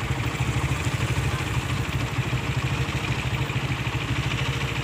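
Large diesel engine idling: a steady, fast-pulsing low rumble.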